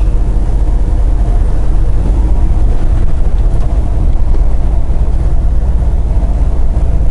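Steady low rumble of a semi truck's diesel engine and road noise, heard inside the cab while driving on the highway.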